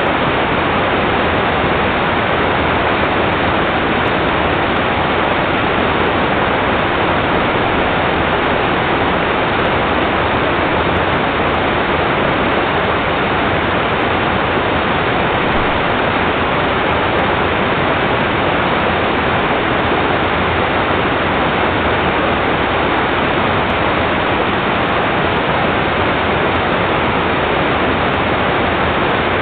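A steady, unbroken rush of water, loud and even throughout, with no breaks or changes.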